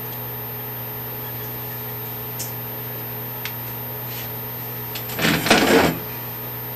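Steady electrical or ventilation hum in a small room, then a short, loud rustle of handling noise about five seconds in.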